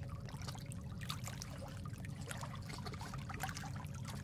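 Water trickling steadily, with many small scattered clicks over a low rumble.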